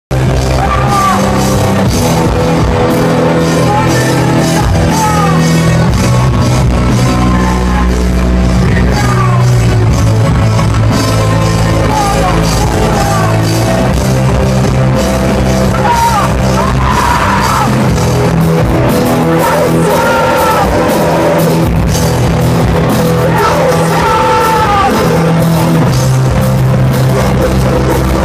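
Depressive black metal band playing live through a club PA: distorted guitars, bass and drums, with vocals sung and yelled over them.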